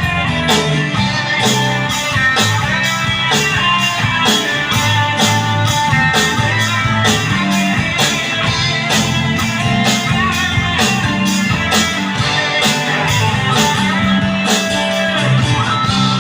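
Live rock band playing an instrumental passage: guitar over bass and drums with a steady cymbal beat. The drums stop just before the end, leaving a held chord.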